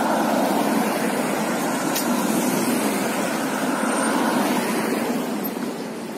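Road traffic: a steady rush of passing vehicles, easing off near the end.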